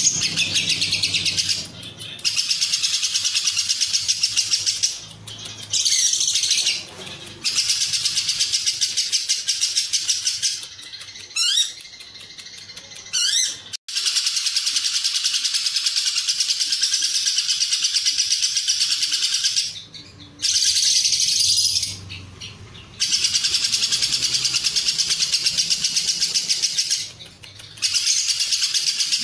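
Lovebird ngekek song: a fast, high chattering trill held for several seconds at a time, broken by short pauses and a few quick rising squeaks. This is the long 'ngekek panjang' delivery prized in lovebird song contests.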